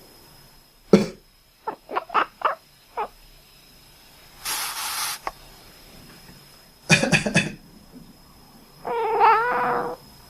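Short, sharp coughs in several bouts, with a breathy hiss about halfway through. A drawn-out, wavering cat meow comes near the end.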